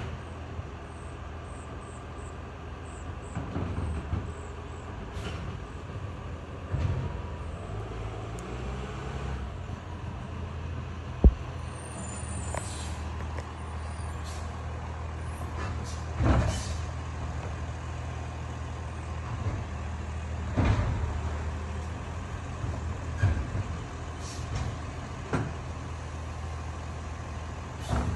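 Automated side-loader garbage truck's diesel engine running steadily, with intermittent thumps and clanks from its arm working the curbside bins, and one sharp click partway through that is the loudest sound.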